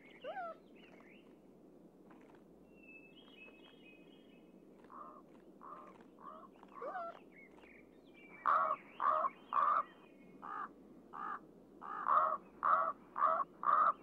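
A large black corvid cawing: a run of short caws, soft at first and louder over the last six seconds, about two a second. Faint high chirps of small birds sound earlier on.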